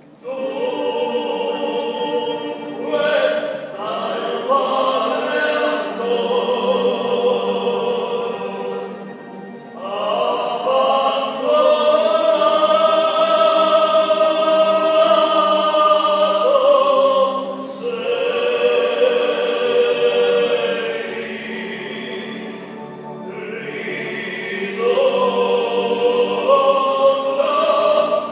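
Choir singing a song of the Passion in long held phrases, with short breaks between them.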